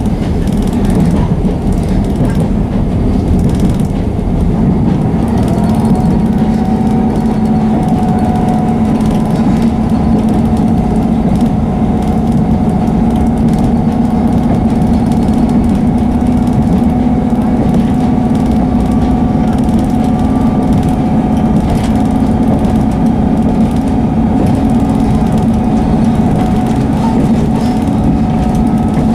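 Inside a Class 158 diesel multiple unit on the move: the steady drone of its underfloor diesel engine mixed with wheel and rail noise. About six seconds in the engine note firms up and a higher whine joins it and holds.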